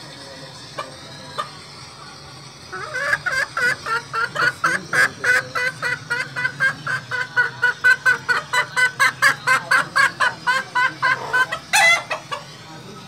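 Silkie chicken clucking rapidly, about four or five clucks a second, ending with one louder, higher call.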